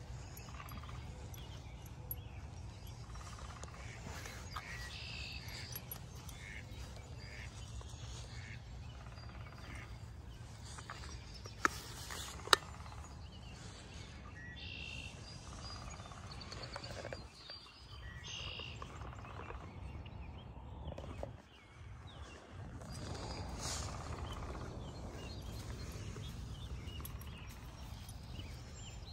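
Small birds chirping now and then over a steady low rumble, with two sharp clicks close together about twelve seconds in.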